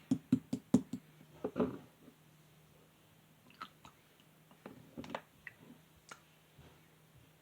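Clear slime handled by hand: a quick run of about five sharp clicking pokes in the first second, a short squelch about a second and a half in, then scattered soft clicks and squishes.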